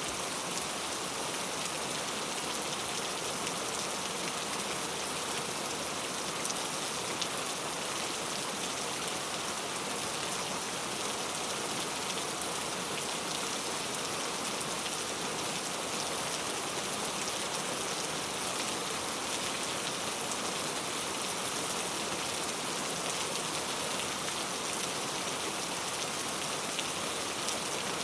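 Heavy rain falling steadily: a dense, even hiss with a fine patter of drops, never letting up.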